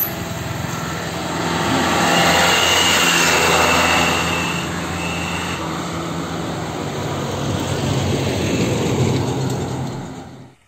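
Road traffic passing close: truck engines and tyres with motorbikes. The noise swells about two to four seconds in and again near the end, with a thin high whine for a few seconds early in the swell, then cuts off suddenly.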